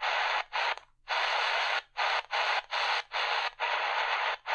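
Tecsun PL-380 portable radio's speaker hissing with medium-wave static as it is tuned step by step up the band, the sound muting briefly at each frequency step, about twice a second.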